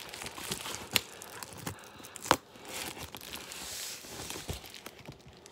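Scissors cutting into a FedEx Express mailer, the envelope rustling and crinkling, with a few sharp snips; the loudest comes a little over two seconds in.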